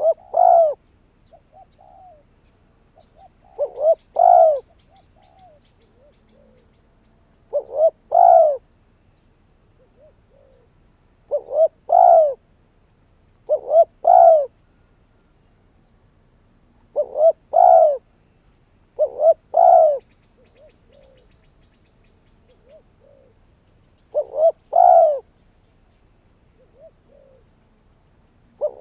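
Spotted dove (cu gáy) cooing: a repeated call phrase every few seconds, each a couple of short notes running into a louder drawn-out coo, with faint softer coos between the phrases. This is the call of a decoy dove used to lure wild doves.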